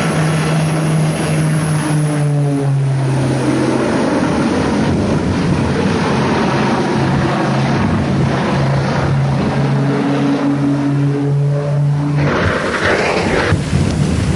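Propeller aircraft engine running loud and steady, its hum dropping in pitch about four seconds in and rising again a couple of seconds later. About twelve seconds in the hum gives way to a louder rushing noise.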